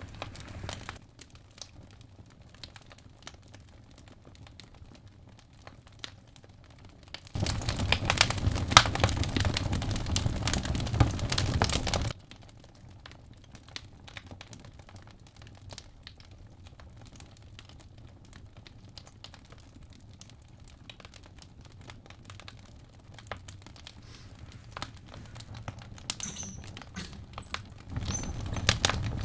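Wood fire crackling in a fireplace, with irregular sharp pops and snaps. From about seven to twelve seconds in, the crackling and rustling turns much louder, then drops back abruptly.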